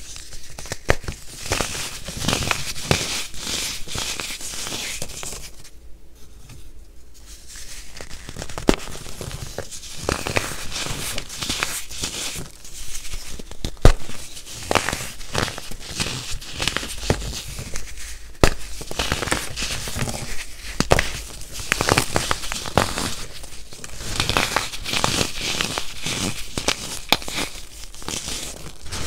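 Hands crushing and crumbling pressed baking soda cups: a dry, dense crunching and crackling of chalky chunks breaking apart. It eases off briefly about six seconds in, and a single sharp snap stands out near the middle.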